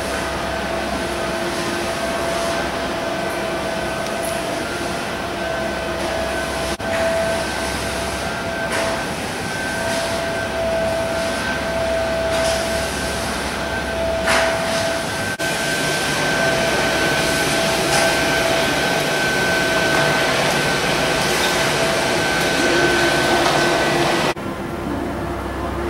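Steady rushing indoor ambience with a constant hum tone, like ventilation or machinery noise in a large hall. It breaks off and changes abruptly a few times.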